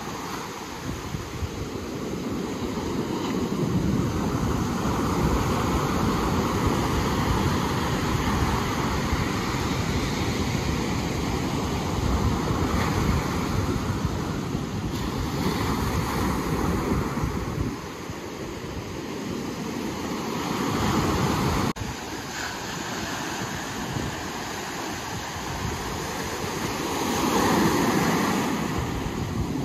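Ocean surf washing in continuously, swelling louder every few seconds as waves break, with wind rumbling on the microphone. A sudden break comes about two-thirds of the way through.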